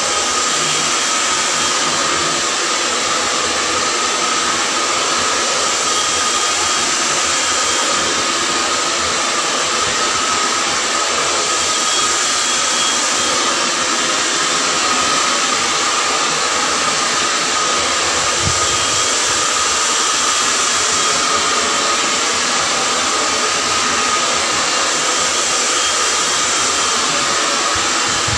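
Hand-held hair dryer running steadily as it blow-dries hair: a constant rush of air with a steady high whine through it.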